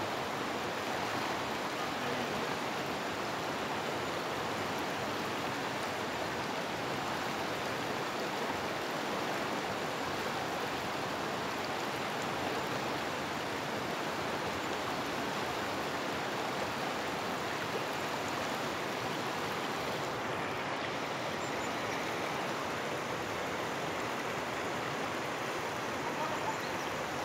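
Fast-flowing river rushing steadily around waders in white water, an even, unbroken rush of water.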